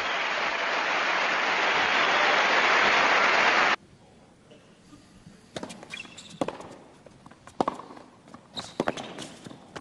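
Crowd applause that cuts off abruptly about four seconds in. Then a tennis ball is bounced before a serve, and a rally follows with sharp single knocks of ball on racquet and court, each about half a second to a second apart.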